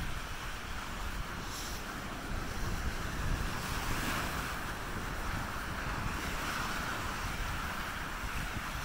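Ocean surf washing onto the beach as a steady hiss, with wind buffeting the microphone as a low, fluttering rumble.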